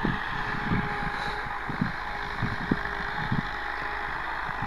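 Steady drone of a distant NH Dabang 85 tractor working a field with a disc harrow, with irregular low thuds over it.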